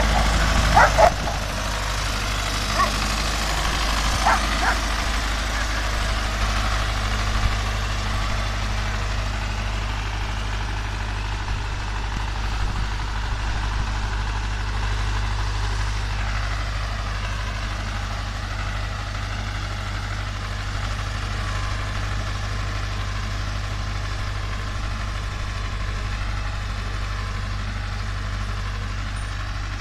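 Tractor engine running steadily as it pulls a mounted plough through the soil. A dog barks a few times in the first five seconds.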